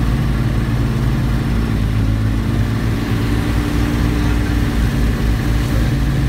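An engine running at a steady speed, a constant low hum that holds level throughout.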